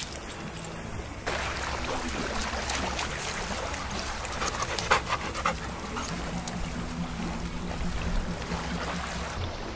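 A Chesapeake Bay retriever panting close to the microphone, with small waves lapping at the shoreline.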